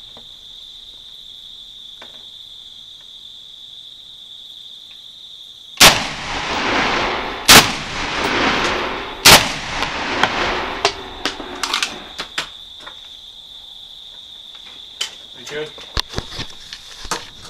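Three rifle shots from an NEA 15, an AR-15-pattern carbine with a 14.5-inch barrel, fired about a second and a half to two seconds apart, each followed by a long rolling echo. A steady high-pitched whine runs beneath, and light clicks follow the last shot.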